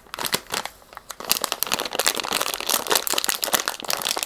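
Plastic packaging crinkling and rustling as a small parts kit is unwrapped and handled, in dense rapid crackles with a brief lull about a second in.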